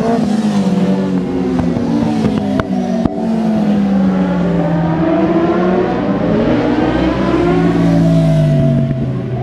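Racing motorcycles passing on a track, several engine notes overlapping, each falling in pitch as the bike goes by.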